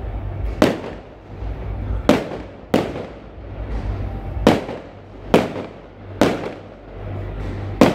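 Aerial fireworks shells bursting overhead: about seven sharp bangs at uneven intervals, roughly a second apart, each trailing off in an echo.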